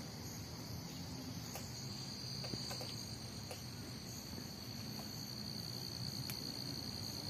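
Crickets trilling steadily in a high, unbroken tone, with a second, lower trill growing stronger about two seconds in.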